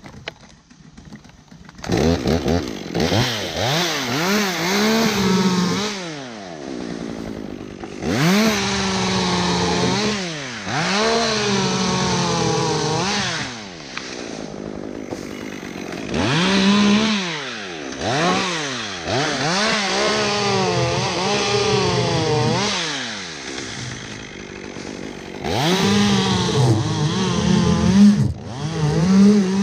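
Chainsaw making a series of salami cuts through a hackberry stem. It revs up again and again, the engine pitch sagging and wavering under load in each cut, and drops back to idle briefly between cuts.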